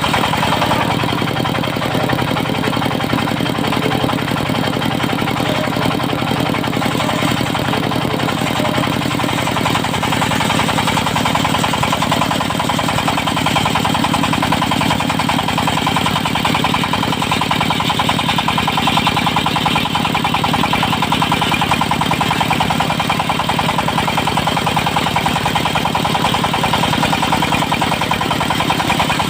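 Diesel engine of a portable circular sawmill with a 70 cm saw blade, running steadily with a fast, even firing beat.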